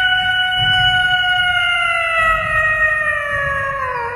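A domestic cat's single long, drawn-out meow that holds one pitch, sags slowly, and slides lower near the end.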